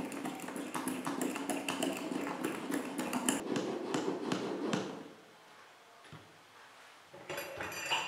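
Manual plunger milk frother, a glass carafe in a stainless steel frame, worked with rapid strokes for about five seconds, giving a fast run of clicks and rattles as the mesh plunger moves through the milk. Near the end comes a short metallic clink with a ringing note.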